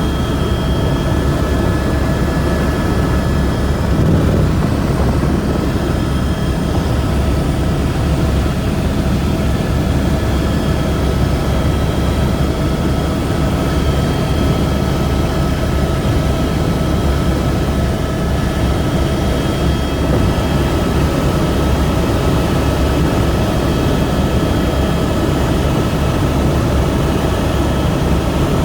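Helicopter in flight, heard from on board: a steady, loud low rumble of rotor and engine with a constant high whine over it.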